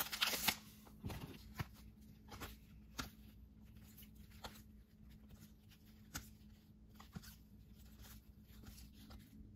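Trading cards being flipped through by hand: soft card-stock clicks and rustles, one every second or so, with a denser rustle at the very start.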